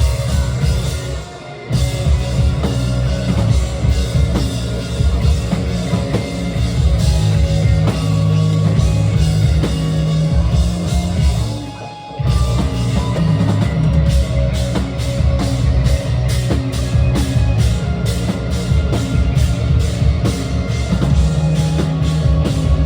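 Rock music with drums and guitar, briefly dipping about a second and a half in and again about twelve seconds in.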